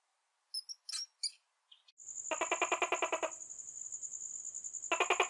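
A few brief high squeaks from a hamster, then from about two seconds in a steady, high chirping trill with two bursts of fast rattling pulses, a dubbed sound for a green anole lizard.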